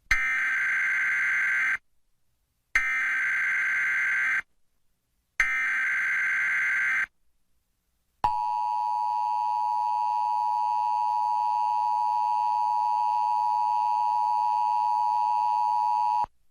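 Emergency Alert System SAME header: three short bursts of warbling digital data tones, each about a second and a half long with brief silences between, followed by the long steady attention tone of about eight seconds that cuts off abruptly. This sequence marks the start of a new emergency alert broadcast.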